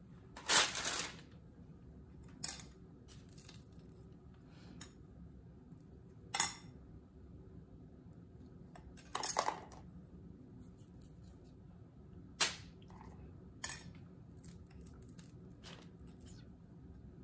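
Metal measuring spoon clinking and scraping against a glass bowl while scooping jam: about six sharp, separate clinks spread a few seconds apart, the longest scrape about half a second in, with quiet room tone between.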